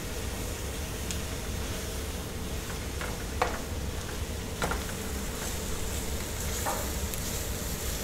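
Floured cardoon pieces sizzling in butter in a metal pan while a metal slotted spoon stirs them, with a few light clicks of the spoon against the pan. This is the flour being cooked into the butter and vegetables before the milk goes in.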